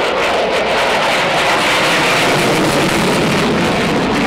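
F-22 Raptor's twin Pratt & Whitney F119 turbofans passing overhead at display power: a loud, steady rush of jet noise.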